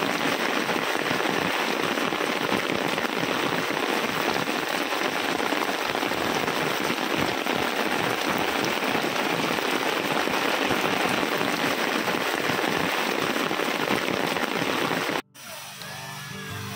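Heavy rain pouring steadily on a camping tent's tarp, a dense even hiss that cuts off abruptly about fifteen seconds in.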